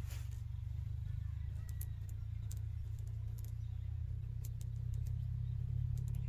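A steady low engine drone, with scattered faint clicks over it.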